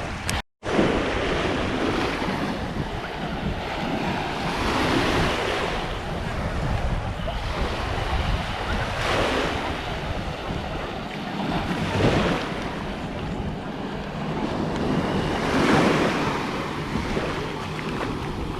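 Small waves washing onto a sandy beach, swelling and breaking every few seconds, with wind buffeting the microphone as a low rumble. The sound drops out for an instant about half a second in.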